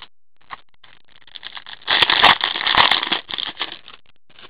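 A trading-card pack wrapper being torn open and crinkled: a dense, crackly rustle about two seconds in that lasts just over a second, with lighter rustles and a few clicks before and after as the cards are handled.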